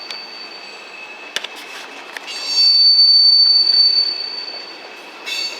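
Freight train cars rolling past with high-pitched steel wheel squeal. The steady screech swells loudest for about two seconds in the middle, with a sharp clank about a second and a half in.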